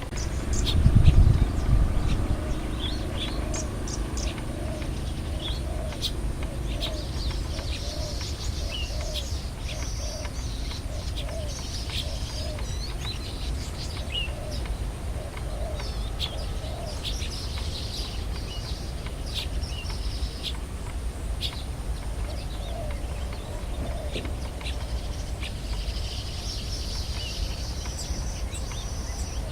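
Several birds chirping and trilling over a steady low rumble, with a run of lower, evenly repeated calls through the first half. A brief low thump about a second in is the loudest sound.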